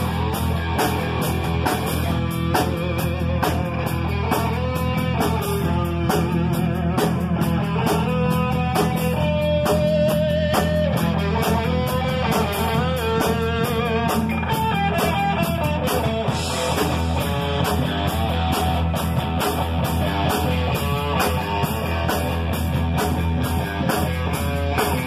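Live rock band playing: electric guitars over a drum kit, with a lead guitar line that wavers and bends in pitch.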